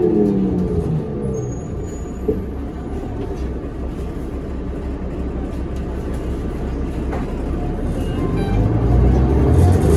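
Cummins ISL diesel engine of a New Flyer D40LF transit bus, heard from inside the cabin. The engine winds down in pitch at the start and settles to a low rumble, with a single knock about two seconds in. Near the end the engine note rises again as the bus accelerates.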